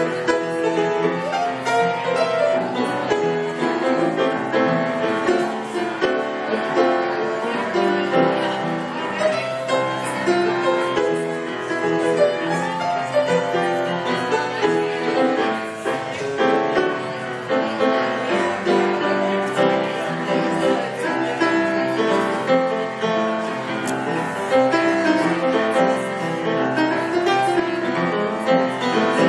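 Grand piano played continuously, an improvised run of many overlapping notes and chords.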